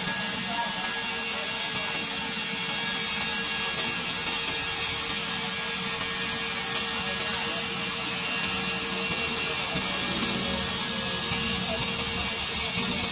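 Grinding disc of a tool-post grinder working a metal part spinning in a lathe: a steady, unbroken hissing grind with a faint steady hum beneath it.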